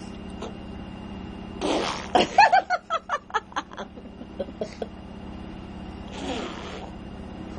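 Imitation fart sounds: a breathy blow, then a rapid sputtering run of about five pulses a second for roughly two seconds that weakens and trails off, and another breathy blow near the end.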